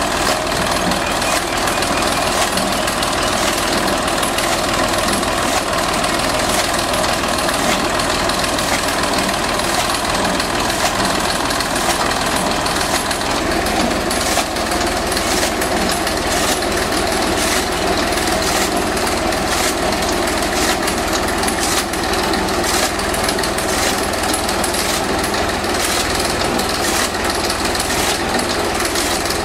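Tractor's diesel engine running steadily while it drives a belt-driven chaff cutter off its rear wheel. The cutter's flywheel knives chop green fodder with a fast, continuous clatter.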